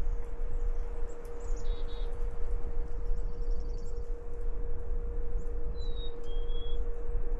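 Side-by-side utility vehicle running with a steady low rumble and a constant whine. Birds chirp faintly twice over it.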